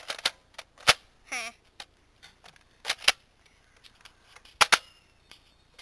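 Nerf Barrel Break IX-2 foam dart blaster being fired and handled: a run of sharp plastic clicks and snaps, the loudest about a second in and a loud pair a little before the end.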